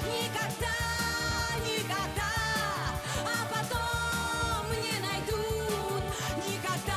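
Pop music with no words: a band playing the song's instrumental part, with a pulsing bass line under a wavering lead melody.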